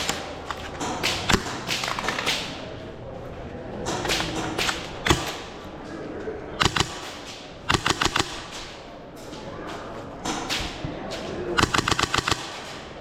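Airsoft guns firing: single sharp snapping shots and short rapid bursts of about five to eight shots, the clearest bursts about eight seconds in and near the end.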